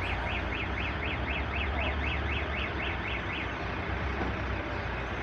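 Truck reversing siren sounding a quick warble of rising-and-falling chirps, about four a second, that stops about three and a half seconds in, over the low rumble of the truck's idling engine.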